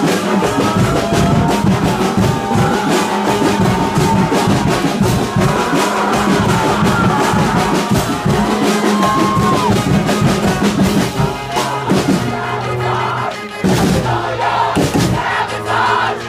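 Street brass band playing loud music with drums, with a crowd around it; the music changes character about two-thirds of the way through.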